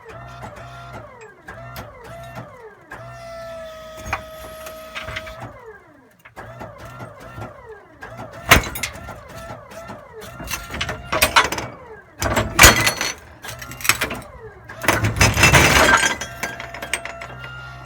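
Glass breaking: several sharp crashes in the second half, then a longer shattering crash near the end, which is the loudest part. Under them a machine whines with a repeating falling pitch.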